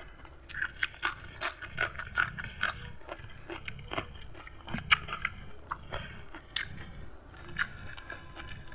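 A person chewing and biting food, with irregular crunchy clicks and smacks throughout.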